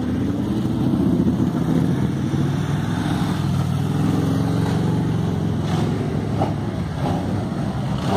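Engines of large touring motorcycles running as the bikes ride slowly past, a steady low engine note that shifts a little in pitch.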